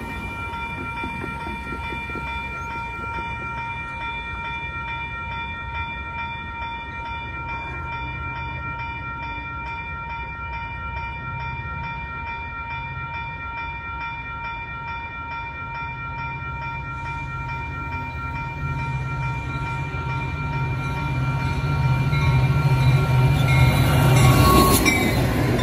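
Railroad crossing warning bell ringing steadily and evenly while the crossing signals flash. In the last several seconds the rumble of an approaching Metra F40PH diesel locomotive and its train grows steadily louder, peaking as it reaches the crossing.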